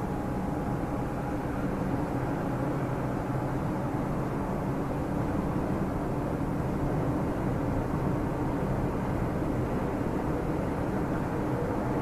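Cabin noise of a Suzuki Dzire AGS cruising steadily in fifth gear at expressway speed: an even drone of engine and tyre/road noise that does not change.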